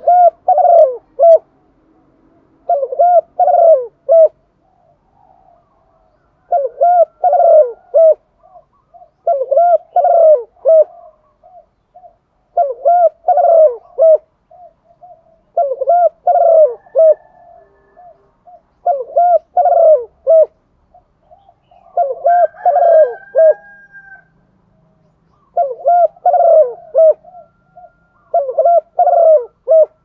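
Female spotted dove cooing: a short phrase of several quick coo notes, repeated about every three seconds, around ten times. This is the hen's call that keepers play to set male spotted doves cooing.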